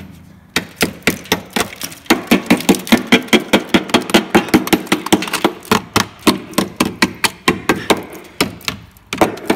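A small hammer rapidly and repeatedly striking the rust-holed sill of a Mercedes Vito van, about three or four sharp knocks a second, breaking away rotten, flaking metal around a corrosion hole.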